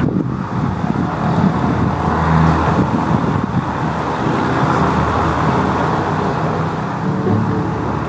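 Floatplane's piston engine and propeller running steadily as it taxis on the water, with wind noise on the microphone.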